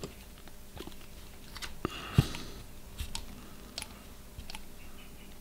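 Hex driver turning a small screw through a washer, with scattered light clicks and scrapes of metal parts, the sharpest about two seconds in: the screw is being tightened to draw a press nut down into the video transmitter board.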